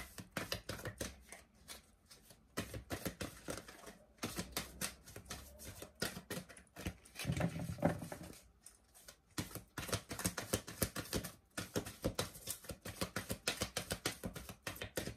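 A deck of tarot cards being shuffled by hand: rapid flicking and rustling of the cards in several runs, broken by short pauses.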